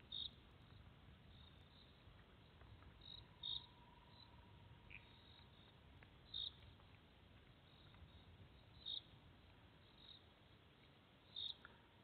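Bubbling kassina frogs calling faintly: five short, high notes spaced about two and a half to three seconds apart, over a low rumble of rain.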